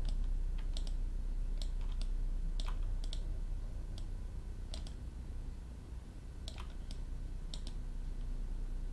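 Scattered clicks of a computer mouse and keyboard, a dozen or so at irregular intervals, over a low steady hum.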